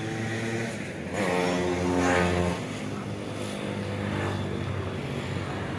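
An engine running steadily, growing louder for about a second and a half starting just over a second in, then easing back.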